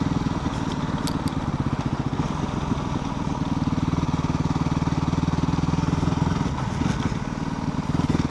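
Yamaha WR250R's single-cylinder four-stroke engine running under way. The note firms up about three seconds in, eases briefly near the end, then picks up again.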